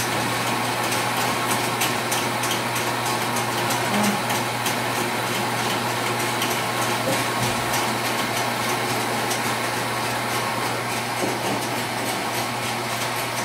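Steady machine noise with a constant low hum, overlaid with light clinks and taps.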